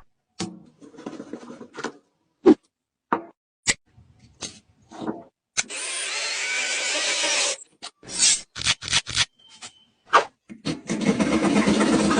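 Tool work on wood: a string of sharp clicks and knocks, broken by two stretches of steady cutting or sanding noise, about two seconds each, the second heavier in the low end.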